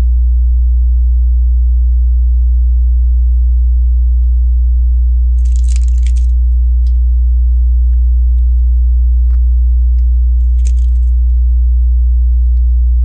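Loud, steady, low electrical hum with a ladder of overtones, like mains hum on the recording. Two short rattles of plastic Lego pieces being handled, a few seconds apart, and a few light clicks sound over it.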